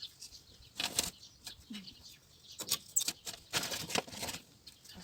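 Crumbling bricks from an old fire pit being scraped and shifted by hand during dismantling, in three short noisy scraping bursts about a second apart.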